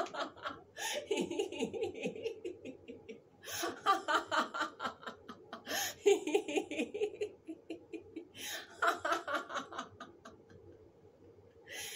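A woman laughing on purpose as a laughter-yoga exercise: four bouts of rapid "ha ha" laughter, each opened by a sharp breath in. The laughter dies away about ten seconds in, and another breath in follows near the end.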